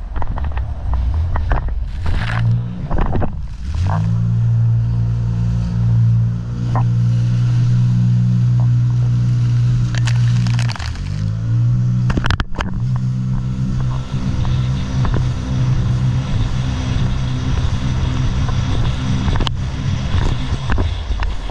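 Jet ski engine running hard at speed, with wind and water spray rushing over the microphone. About eleven seconds in the engine note drops briefly, as the throttle eases, then climbs back up.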